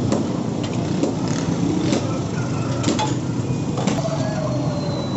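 Steady street-traffic din, with several sharp clinks about one a second as a steel ladle knocks against a steel pot of iced drink. About four seconds in, a faint whine starts and slowly falls in pitch.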